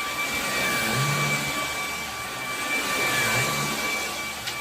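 Rowenta cordless stick vacuum cleaner running steadily on a carpet: a constant rush of air with a steady high motor whine.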